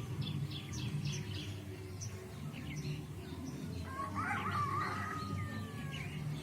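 Birds calling: a flurry of short, high chirps in the first couple of seconds, then a louder cluster of calls with a long, gently falling whistle about four seconds in, over a steady low hum.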